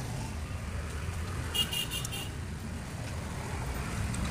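Steady low road-traffic rumble, with a vehicle horn giving a quick run of about four high beeps about a second and a half in.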